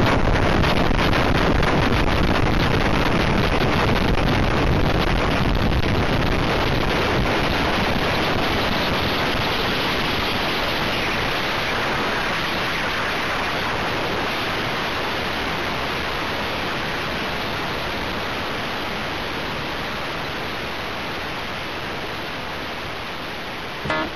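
Steady rush of wind and engine noise on a camera mounted outside a Tecnam P2002 Sierra light aircraft during its takeoff roll, gradually easing in level.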